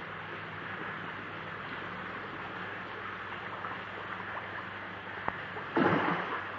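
A crowd of koi churning and splashing at the water surface as they feed, a steady wet splashing, with a louder burst of splashing near the end.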